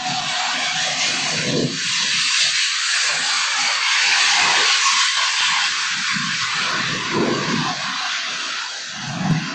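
A loud, steady rushing roar that swells through the middle and eases off near the end, over a weaker uneven low rumble, in a digitally enhanced recording.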